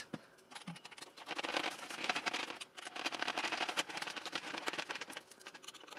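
Hand screwdriver turning a screw in the centre mounting plate of a foam model glider wing, heard close up as dense small scratches and clicks from about a second in, with a short pause midway.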